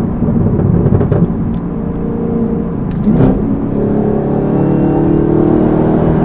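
Chevrolet Camaro ZL1's supercharged 6.2-litre V8 running while driving, breathing through a Rotofab cold air intake and MRT cat-back exhaust. The engine note rises briefly about three seconds in, then settles into a steady drone.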